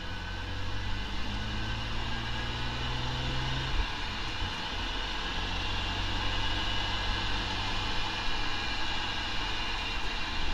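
Drivetrain noise picked up directly off a differential housing with the vehicle under way: a steady rumble with a faint high whine, and a low hum that drops away about four seconds in.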